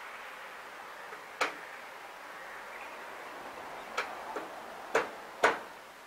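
About five sharp clicks or taps at uneven intervals over a steady background hiss. The last, near the end, is the loudest.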